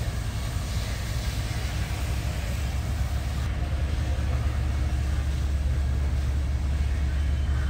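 Steady low rumble of fire apparatus diesel engines running at pumping speed to supply the master streams.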